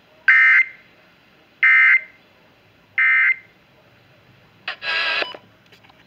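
Emergency Alert System end-of-message code played over FM radio through a weather alert radio's speaker: three short bursts of the warbling two-tone SAME digital data, each about a third of a second and a little over a second apart. About a second and a half after the last burst comes one short, buzzier electronic tone.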